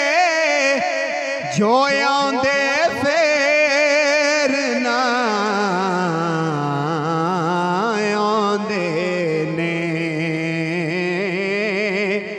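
A man singing a Punjabi naat into a microphone, drawing out long, wavering notes that glide up and down rather than singing separate words.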